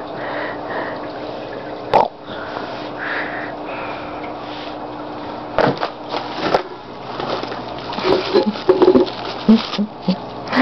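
Rustling and handling noise from a moving camera and bedding, with a sharp knock about two seconds in, two more near the middle, and a flurry of short knocks and scuffles near the end.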